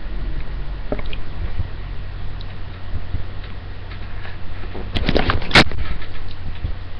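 Steady low hum of a laptop webcam's microphone, with a few faint clicks. About five seconds in comes a quick cluster of clicks and rustles from the computer being handled, ending in one sharp knock.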